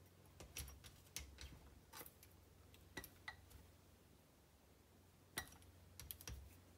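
Faint, irregular light clicks and ticks of a hand tool and small parts on an RC monster truck as a part is tightened and screwed down, with one sharper click a little past five seconds in.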